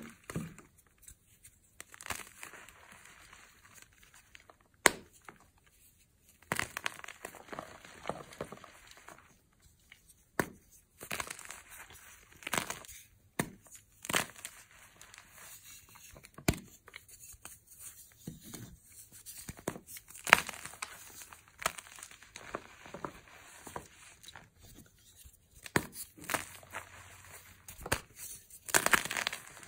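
Blocks of gym chalk (magnesium carbonate) being crushed and crumbled by hand into powder: dry, gritty crunching in irregular bursts, with sharp snaps now and then as pieces break off.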